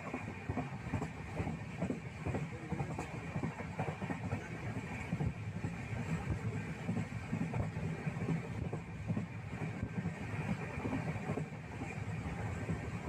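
Steady low rumble with light, irregular rattling, the kind of running noise heard from a moving vehicle.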